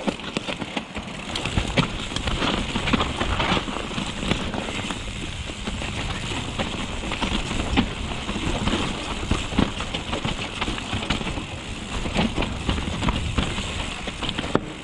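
Mountain bike riding a dirt trail: steady tyre and wind noise with frequent clicks and knocks as the bike rattles over the bumps.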